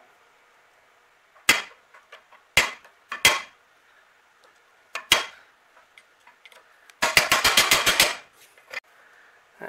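Sharp metal clicks as a screwdriver is worked against the heat riser shaft of a 1948 Chevrolet's cast-iron exhaust manifold: four single clicks spread apart, then a quick run of about ten taps in roughly a second near the end. The tool is prying at a broken piece of the thermostatic spring seized in the shaft's slot.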